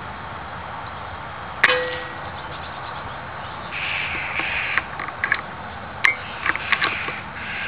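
A sharp metallic crack with a brief ring about a second and a half in, as from an Air Arms S410 .177 air rifle firing. Jackdaws call in bursts through the second half, with a second sharp ringing click about six seconds in.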